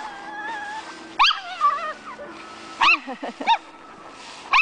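Small dog yapping: four sharp high-pitched barks, about a second in, twice close together near the three-second mark, and once at the end, with a brief whine at the start.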